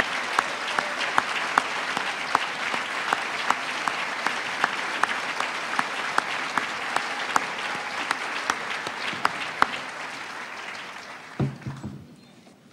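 An audience applauding, with one pair of hands close by clapping sharply about two or three times a second above the rest. The applause dies away near the end, and a few low knocks follow.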